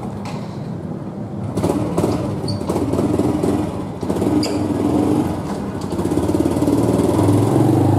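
Motorbike engine running, growing louder about a second and a half in and again near the end.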